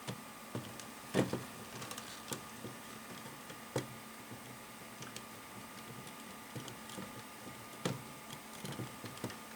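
Plastic LEGO Technic pins and axles clicking and snapping into place as the halves of a fan cage are pressed together by hand. Irregular light clicks, with louder snaps about a second in, near four seconds and near eight seconds.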